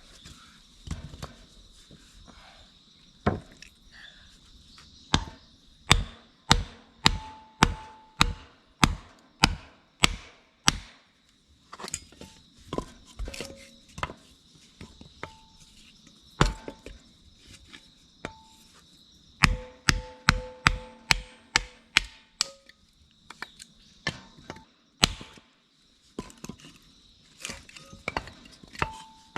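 A series of sharp chopping strikes, coming in irregular runs of up to about two a second, with pauses between the runs.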